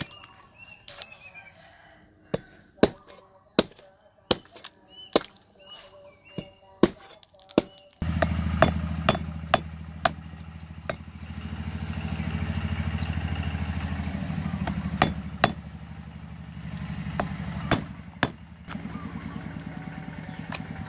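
Cleaver chopping into the husk of a green coconut, sharp strikes one to two a second. About eight seconds in, a steady engine hum starts underneath and swells twice, while the chopping goes on more sparsely.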